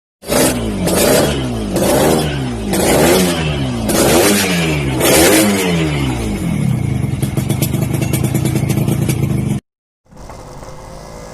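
Yamaha RX-King single-cylinder two-stroke motorcycle engine with a Packing Power 3 aftermarket exhaust, blipped six times in quick succession, each rev rising and falling, then settling to a crackling idle. The sound cuts off suddenly about a second and a half before the end, then the engine is heard again much more faintly.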